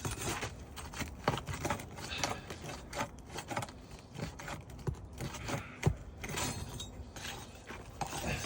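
Irregular metallic clicks, taps and scrapes of a tool working under roof shingles to pry out nails.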